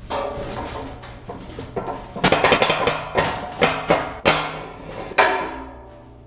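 Sharp metal clanks and bangs: a quick clatter about two seconds in, then several single strikes, each ringing briefly off the steel walls.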